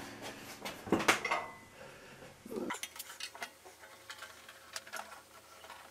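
Thin aluminium sheet being shifted and repositioned in a bead roller, giving light metallic clanks and rattles with the loudest clank about a second in, then a few scattered light ticks.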